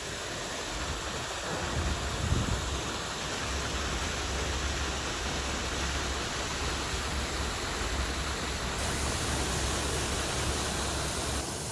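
Waterfall pouring into a lake: a steady rushing and splashing of falling water, with a low rumble underneath through most of it.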